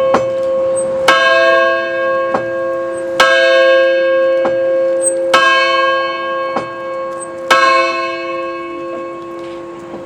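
The college's Founders Bell, a large bell, tolled in slow strokes: four strong strokes about two seconds apart, each followed about a second later by a lighter stroke. Each stroke rings on in a long hum of many tones, and the ringing dies away after the last stroke near the end.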